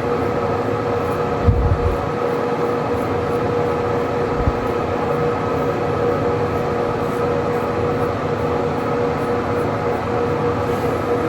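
Electric face razor running with a steady motor hum.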